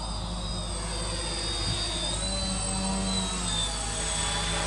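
Motors and propellers of an X-CAM 450 quadcopter in flight: a steady buzzing whine of several pitches that drift slowly up and down.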